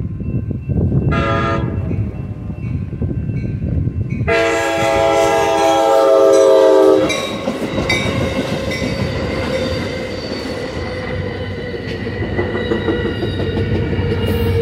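Amtrak San Joaquin passenger train sounding its multi-note horn for the grade crossing: a short blast about a second in, then a loud long blast from about four to seven seconds. The bi-level passenger cars then roll through with a steady rumble and wheels clicking over the rail joints.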